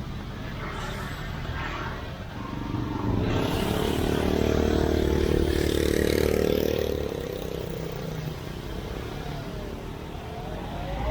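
Street traffic, with a motor vehicle engine passing close and loudest from about three to seven seconds in, then fading.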